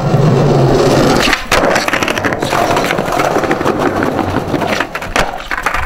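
Skateboard wheels rolling over stone floor tiles with a continuous rough rumble, broken by sharp clacks of the board a few times: about a second and a half in, around two and a half seconds, and near the end.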